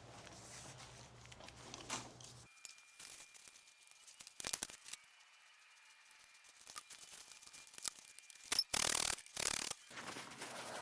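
Faint handling noises while working on an engine's oil filter housing: a few short scraping, rustling bursts, the loudest two close together near the end.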